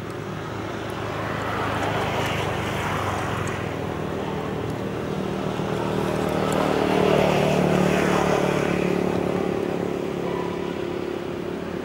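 A motor vehicle's engine running past, getting louder twice and loudest a little past halfway, then fading.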